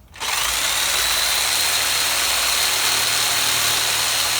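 Reciprocating saw (Sawzall) with a metal-cutting blade starting abruptly and running steadily with a high whine, cutting through the steel pin of a nunchaku chain link.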